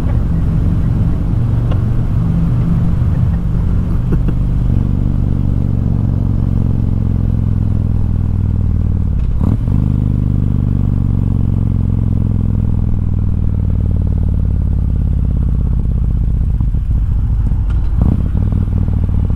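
Harley-Davidson Softail Deluxe's V-twin engine running under way, heard from the rider's seat. Its note drops steadily through the second half as the bike slows, with a short sharp knock about halfway through and another near the end.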